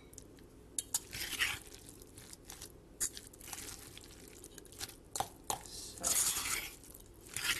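Metal utensil scraping and clinking against a stainless steel mixing bowl while stirring a mayonnaise-dressed pasta salad, in short irregular strokes.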